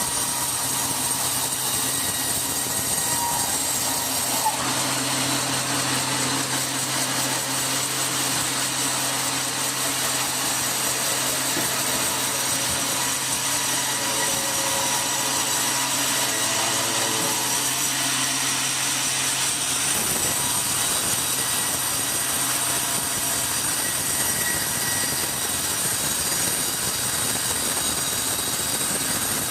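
Sawmill saw machinery running steadily, with a continuous high whine over a noisy mechanical din. A low hum underneath stops about two-thirds of the way through.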